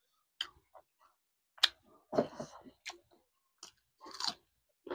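Close-up eating sounds: wet chewing and lip-smacking on a meal of mustard-green saag and dhido, a scattering of short clicks and brief smacks.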